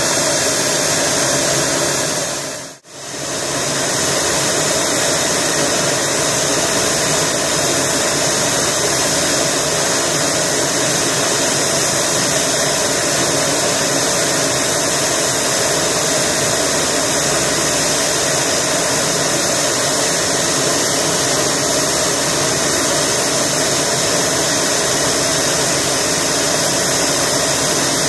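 Pilatus PC-12 NG's single Pratt & Whitney Canada PT6A-67P turboprop running steadily while the aircraft stands parked, propeller turning, a loud even whine and rush of air. The sound drops out for a moment about three seconds in.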